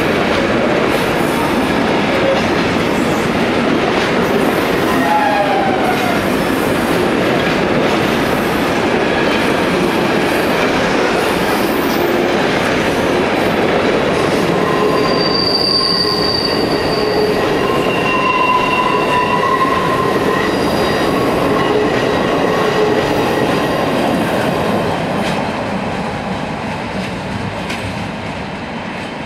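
Intermodal freight train's wagons, loaded with road trailers and containers, rolling past: a steady rumble of wheels on rails with scattered brief high squeals from the running gear. The sound fades as the last wagons pass near the end.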